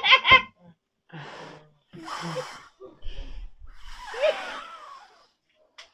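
A man blowing hard at a candle flame in short breathy puffs through a nylon stocking stretched over his face, about four blasts roughly a second apart, the last one ending in a brief voiced grunt. A burst of laughter cuts off just as it starts.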